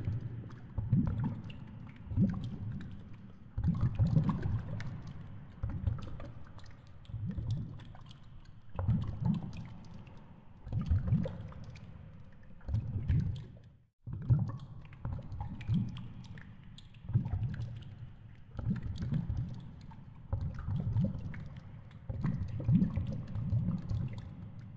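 Water sloshing and gurgling as a polar bear swims in its pool, in deep pulses about once a second with light clicks over them. The sound drops out briefly near the middle.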